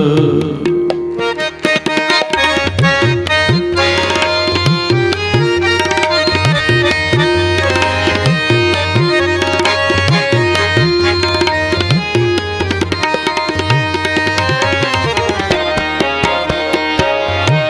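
Background devotional hymn music in an instrumental passage: tabla playing a steady rhythm, its bass drum bending up in pitch on many strokes, under sustained melody notes.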